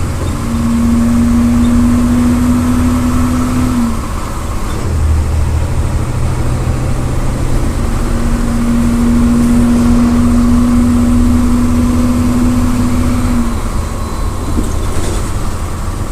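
MWM 6.12 TCE turbo-intercooled six-cylinder diesel of a VolksBus 17-230 EOD city bus running under way with a heavy rumble. Twice a steady droning hum rises over it for a few seconds and cuts off suddenly: the cooling fan roaring loudly, which it does from about 2,100 rpm.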